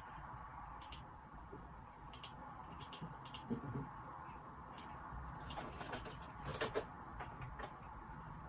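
Scattered computer keyboard keystrokes and clicks, irregularly spaced, over a steady faint hiss picked up by a phone microphone.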